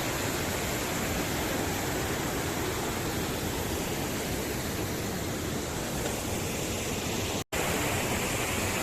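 Waterfall rushing steadily, a constant roar of falling water that breaks off for an instant about seven and a half seconds in.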